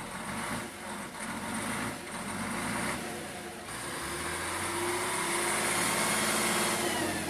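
Praga V3S truck's air-cooled diesel engine working hard as the truck is stuck in deep mud, its wheels churning mud and water; the engine gets louder about four seconds in.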